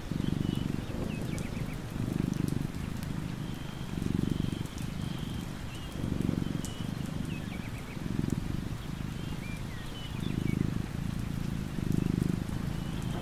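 A sleeping cat purring, the low purr swelling about every two seconds with its breathing. Faint bird chirps sound above it.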